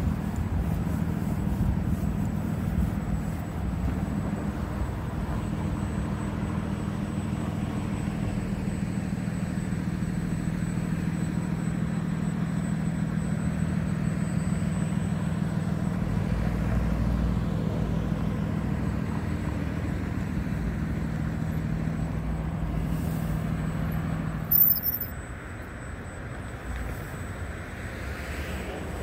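Street traffic: a steady low vehicle engine hum that drops away after a brief loud, sharp sound near the end.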